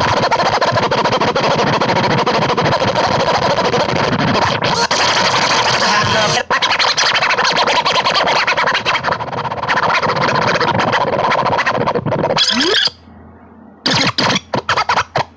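Dense, harsh, noisy music with a steady tone running through it. It cuts off suddenly near the end, followed by a few short choppy bursts.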